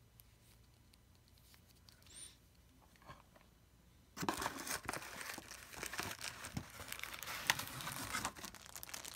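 Clear plastic bag crinkling and rustling against a cardboard shipping box as an action figure packed in the bag is dug out by hand, starting about four seconds in.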